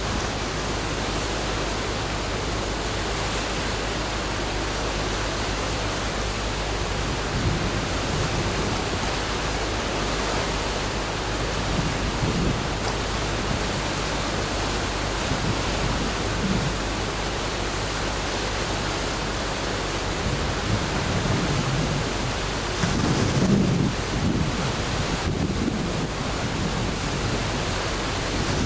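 Steady rushing roar of a river in flood, with low gusts of wind buffeting the microphone about three quarters of the way through.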